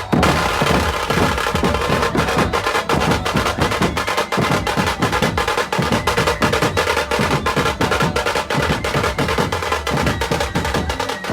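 Loud, drum-heavy music: fast, dense drum strikes, several a second, in an unbroken rhythm, starting abruptly as the earlier music cuts off.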